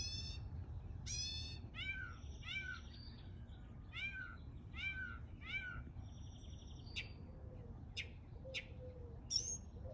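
Northern mockingbird singing in mimicry of a cat's meow: several repeated mewing notes over the first six seconds, then a buzzy note and a few short, sharp notes of its own song.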